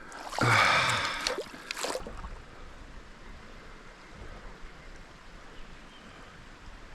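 A small trout stream running, a steady flow of water. For the first two seconds it is covered by a louder burst of close noise.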